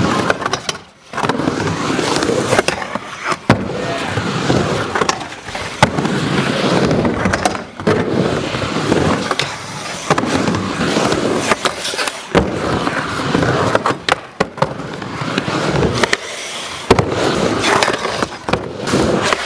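Skateboard with urethane wheels rolling over concrete ramps, making a continuous rough rumble. Sharp clacks and knocks from the board and trucks hitting the coping and landing come several times throughout.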